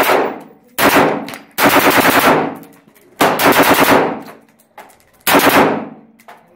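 Gunfire: single shots, then two long, quick strings of shots fired back to back, and a last shot or short string near the end, each dying away in a ringing tail.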